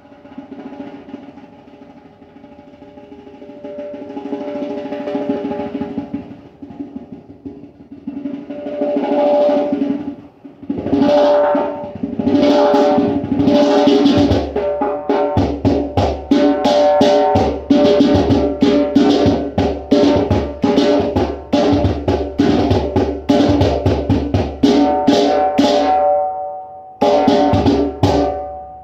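Hand-drum music: quiet at first, then building into fast, dense strikes over steady ringing tones. There is a short break near the end, then the playing resumes and stops abruptly.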